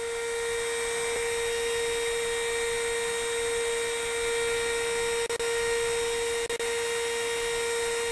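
Small electric spindle motor of a homemade CNC mill running at a steady speed: a constant high whine with even overtones. It dips briefly twice, about five and six and a half seconds in.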